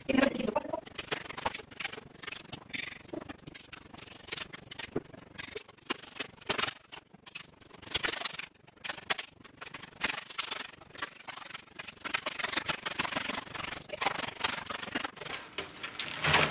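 Gingerbread being broken apart by hand: irregular brittle cracks and snaps, with pieces scraping and rubbing against each other and the baking tray. A louder cluster of cracking comes near the end.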